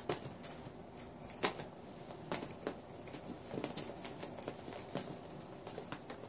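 Kitten pawing at a sliding glass door: irregular light taps and clicks of paws and claws on the glass, a few a second.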